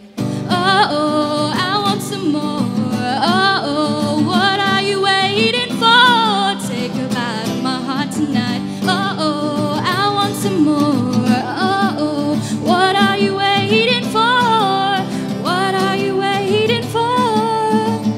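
A woman singing a pop song with acoustic guitar accompaniment, her voice sliding between held notes in sung phrases.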